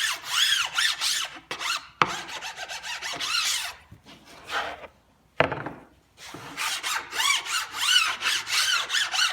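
Dull hand file rasping in quick back-and-forth strokes along the edge banding of a melamine cabinet part, taking off glue residue and little bumps. The strokes pause for a moment about halfway through, then carry on.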